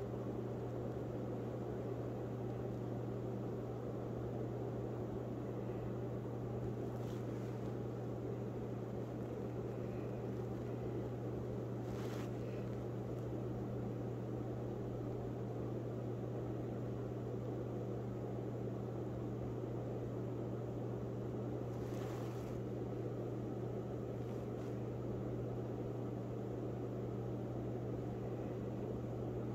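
Steady low machine hum with a hiss, from something running continuously such as a fan or household appliance. A few faint ticks break through, about twelve and twenty-two seconds in.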